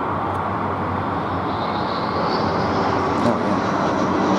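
Regional jet airliner with twin rear-mounted turbofans passing low overhead on approach, landing gear down: a steady jet roar, with a high engine whine that climbs in pitch from about a second and a half in.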